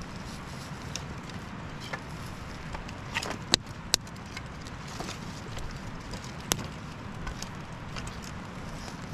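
Small campfire of birch bark and kindling crackling over a steady hiss, with scattered light ticks and three sharp pops, two close together about three and a half seconds in and one more near six and a half seconds.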